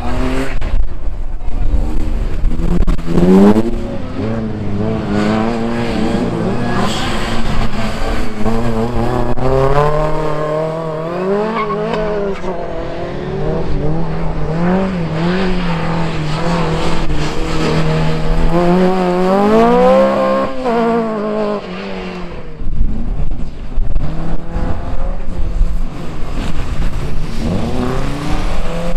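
Racing engines of several small race cars revving hard and easing off, the pitch climbing and falling with each acceleration and lift. The sound dips briefly a little after twenty seconds and then comes back loud.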